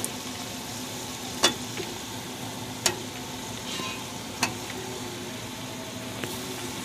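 Tomato masala sizzling in a metal cooking pot as taro slices sit in it, with three sharp clinks of a steel ladle knocking against the pot, about a second and a half apart.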